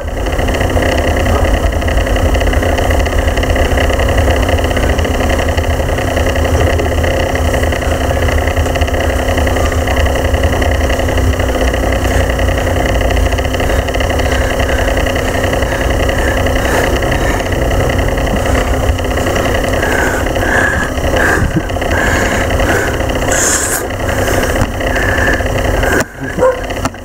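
A steady, loud mechanical drone: a low rumble with a constant hum running through it, like a running motor or idling engine. From about 20 seconds in, a string of short higher-pitched sounds breaks in over it.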